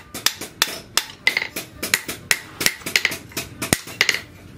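Hand hammer striking a red-hot leaf-spring steel cleaver blade on a steel anvil post, about three blows a second, several of them with a short metallic ring.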